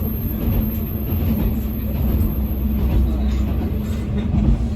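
KiHa 120 diesel railcar running along the line: a steady engine drone over a heavy low rumble, with a thin high whine that stops near the end.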